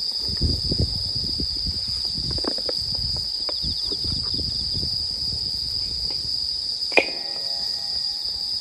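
A steady, high chorus of crickets or other night insects trilling, with scattered soft low knocks and crackles. About seven seconds in comes a single sharp clink that rings briefly.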